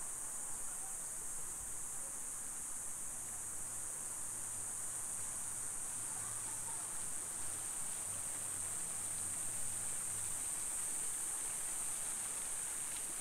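Insects buzzing in a steady, high-pitched, unbroken drone, with a faint low hum in the background for a few seconds in the middle.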